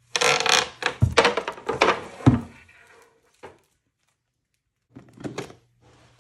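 Wooden skateboard decks being handled and flipped through, knocking against each other in a run of sharp wooden clacks and thuds with some rustling, two of them loudest. The sound cuts off about three seconds in, and a few softer clatters follow near the end.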